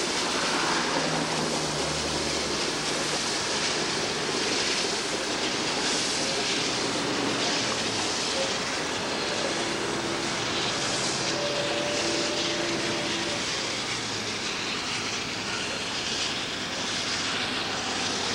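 Steam locomotive working a passenger train across a bridge: a steady, even rumble of the engine and rolling cars that holds at one level throughout.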